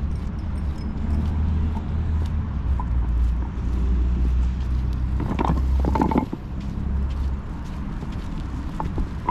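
Outdoor street ambience: a steady low rumble, dropping away about seven seconds in, with a brief cluster of louder sounds about five and a half seconds in.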